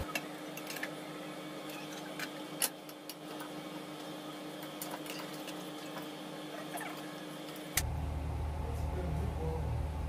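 Metal serving spoon scooping thick egusi soup and stew from aluminium pots: a soft wet squish with scattered sharp clinks and scrapes of the spoon against the pot rims. Near the end a steady low rumble comes in.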